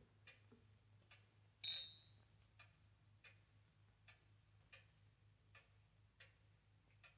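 Faint ticking of a clock, one tick roughly every three-quarters of a second, with a single brief, brighter clink that rings about two seconds in.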